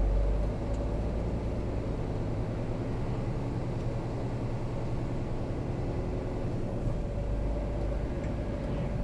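Diesel engine of a long-haul truck running steadily, heard from inside the cab as a low, even drone; the deepest rumble eases slightly about half a second in.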